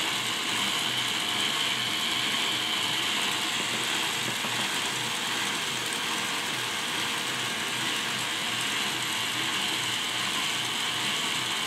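Four K'nex electric motors driving a plastic gear train of K'nex differentials, running steadily with the gears turning together.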